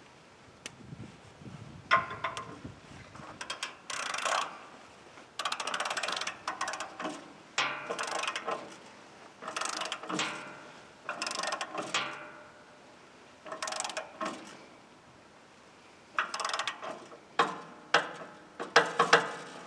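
A ratchet wrench clicking in about ten short runs, each around a second long, with pauses between: hand-adjusting the blade tension and tracking bolts on a bandsaw mill.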